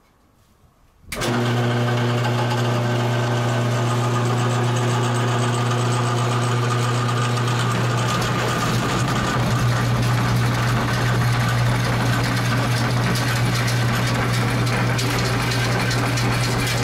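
Drill press motor switched on about a second in, then running with a steady hum. From about eight seconds in, a tenon cutter in its chuck bites into the end of a log spindle, adding a rough cutting noise over the hum.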